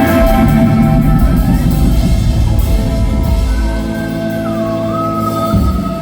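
Live country band playing, with long held notes and a sliding note just past the middle; the low bass and drums stop about five and a half seconds in.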